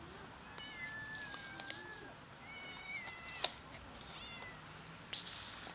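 A kitten meowing three times in thin, high-pitched cries, the first long and slightly falling. Near the end comes a loud hissing 'psst' from a person calling the cats.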